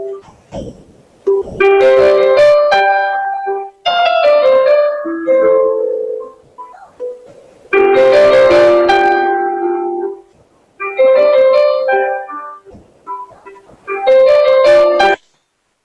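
Piano music, played in short phrases of a few seconds each with brief dips between them, that stops abruptly near the end.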